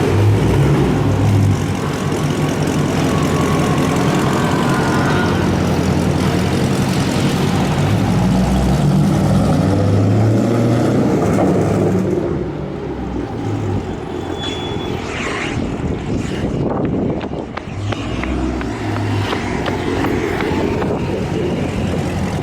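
Dodge Charger's V8 exhaust running through freshly fitted catless mid pipes, really loud. It stays loud and steady for about twelve seconds, then drops off and carries on quieter and more unevenly.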